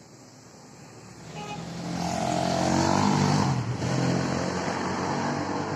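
A motor vehicle passing close by: its engine and road noise swell from about a second and a half in, peak around the middle, then fade.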